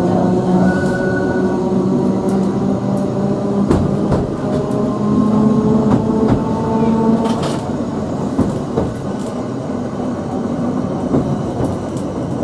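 Electric tramcar Sheffield 510 running, heard from inside the saloon. A motor whine rises in pitch over the first seven seconds or so, then fades, over a steady rumble of the car on the track. A few sharp knocks from the wheels on the rails come through.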